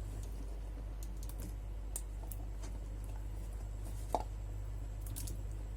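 Faint scattered clicks and light taps as diced carrot is tipped into a soup pot, with one slightly louder knock about four seconds in, over a steady low hum.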